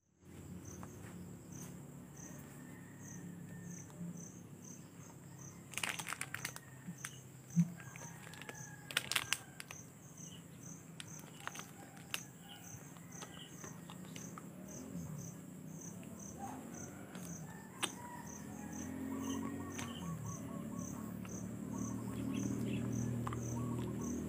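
An insect chirping at a steady rhythm, high-pitched, about one and a half chirps a second, over a faint background hum, with a few sharp clicks about a quarter and a third of the way in.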